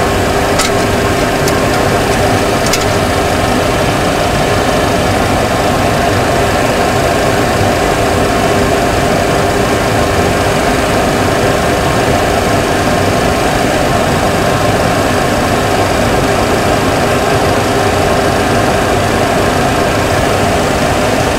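Steady cockpit noise in a Boeing 737 Classic during descent: a constant rush and hum of engines and airflow at an even level. A few light clicks come in the first three seconds.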